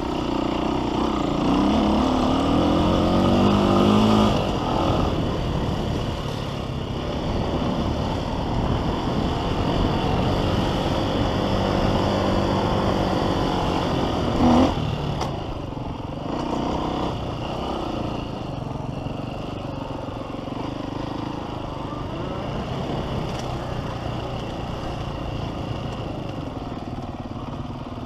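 Motocross bike engine revving and shifting as it is ridden hard round a dirt track, heard from on board. Its pitch climbs steeply over the first few seconds, then keeps rising and falling. There is a brief loud thump about halfway through.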